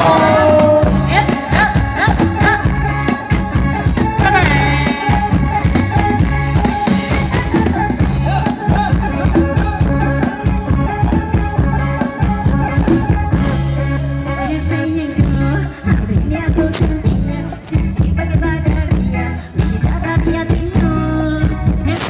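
Live band music with a singer over a steady, driving beat.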